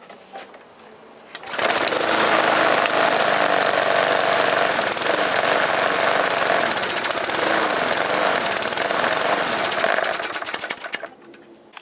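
Briggs & Stratton Sprint 375 lawn mower engine starting about a second and a half in and running loud and steady for about eight seconds, then dying away and stopping near the end.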